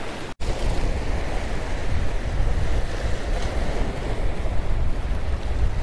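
Sea waves breaking and washing against the jetty rocks, with wind buffeting the microphone as a low, unsteady rumble.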